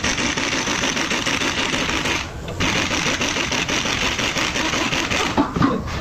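Pneumatic impact wrench hammering on the top nut of a front strut held in a spring compressor, running in two long bursts with a short pause about two seconds in, then stopping a little after five seconds in. A couple of knocks follow near the end.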